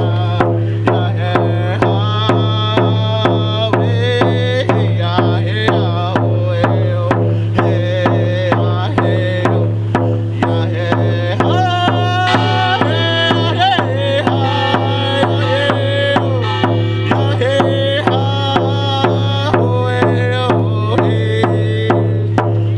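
Background music with a steady drum beat over a sustained low drone, with a wavering melody line on top.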